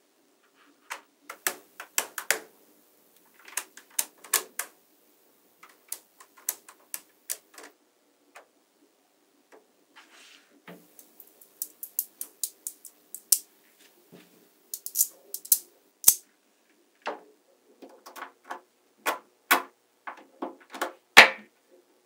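Small magnetic balls clicking sharply as they are snapped together by hand, in quick clusters of clicks with short pauses between.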